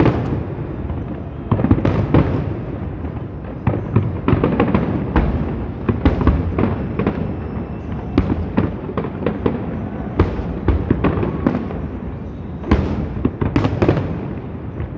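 Fireworks display: a continuous barrage of bangs and crackling shell bursts, with a few sharper reports about two seconds in and near the end.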